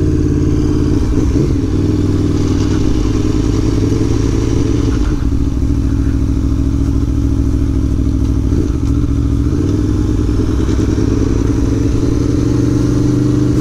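Aprilia Tuono V4 Factory's V4 engine through its decat Akrapovič slip-on exhaust, heard from the rider's helmet while the bike cruises. The engine note holds fairly steady, with small dips and rises in pitch a few times.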